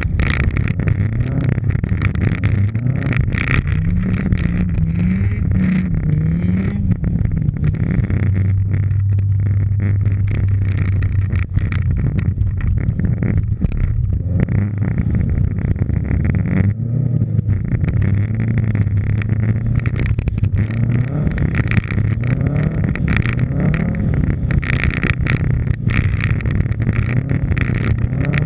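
Subaru Impreza WRX STI rally car's turbocharged flat-four engine driven hard on snow, revving up and dropping repeatedly through gear changes, with a few seconds of steadier, lower running midway.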